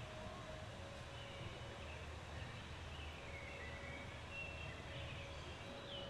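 Faint outdoor ambience: a low steady rumble with scattered distant bird chirps.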